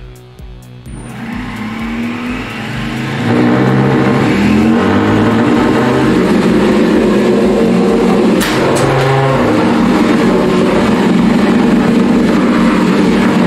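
Beetleweight combat robot running: its brushless inrunner weapon motor spins the beater bar up about three seconds in and then runs loud and steady, along with the brushed drive gearmotors.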